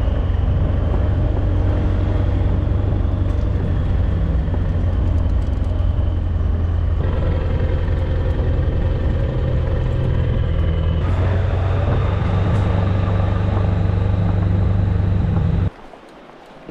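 A loud, steady low rumble with a hum in it. It shifts in character twice and cuts off suddenly near the end.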